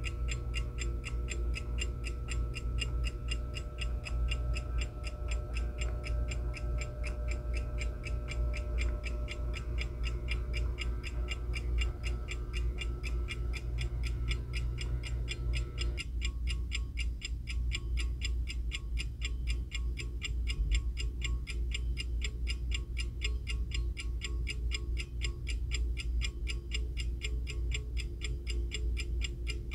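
Tokyo Tokei Gold Star wind-up alarm clock's mechanical movement ticking rapidly and evenly, with a steady low hum underneath.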